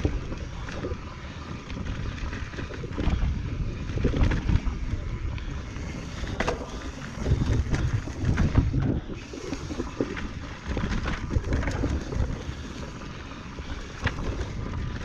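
Transition Patrol Carbon mountain bike descending a rough trail: low rumble of tyres on dirt and wind buffeting the chest-mounted microphone, broken by frequent sharp knocks and rattles as the bike runs over rocks and roots.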